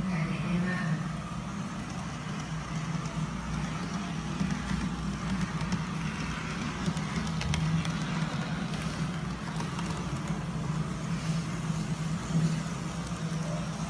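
HO-scale model of a Thai Krupp diesel locomotive running along the layout track, its small electric motor giving a steady hum, with a few faint clicks.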